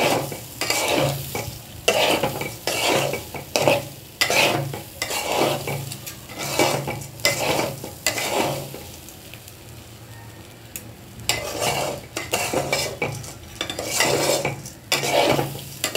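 Spatula scraping and stirring raw rice in a metal pot as the rice is sautéed dry with spices, the grains rustling against the pot. The strokes come about one to two a second and pause for a couple of seconds a little after the middle.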